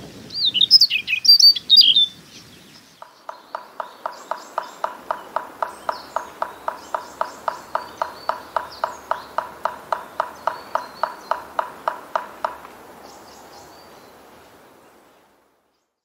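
A Siberian rubythroat sings a short, loud, high warbling phrase. It is followed by a long, even series of clear, ringing call notes, about three to four a second for some nine seconds, typical of a black woodpecker's territorial call. The series then fades out.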